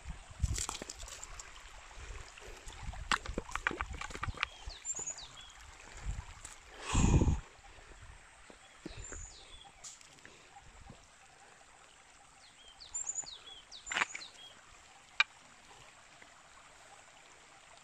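A stream trickles faintly over rock while footsteps and knocks sound on stone, thickest in the first few seconds. There is a brief loud rushing noise about seven seconds in. Short, high, falling bird chirps come every few seconds.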